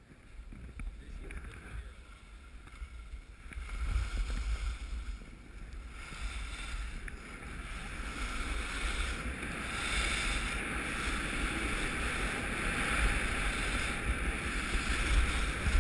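Skis sliding over snow with a steady hiss, while wind rumbles on the camera's microphone. Both get louder about four seconds in and again as speed builds toward the end.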